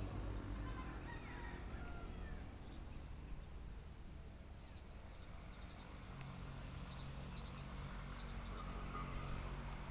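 Outdoor ambience: insects chirping in short repeated trills, with a few faint bird calls in the first seconds and a low hum of traffic underneath.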